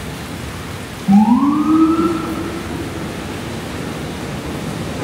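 An emergency vehicle's siren sounding one short wail about a second in: it starts suddenly, rises in pitch for about a second, levels off and fades out. Underneath is the steady hiss of rain and wet street traffic.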